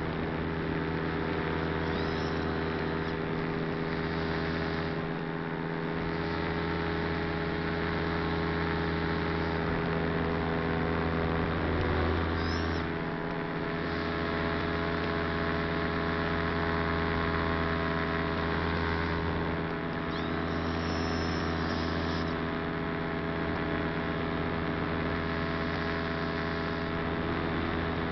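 Small aircraft's electric motors and propellers humming steadily, as heard by the camera carried on board, with a constant rushing noise; the low rumble drops out briefly a few times.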